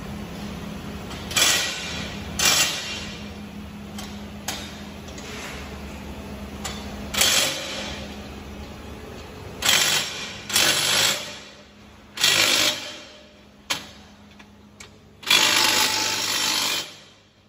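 Workshop machinery noise: a steady low hum with about ten irregular short bursts of power-tool noise, the longest near the end.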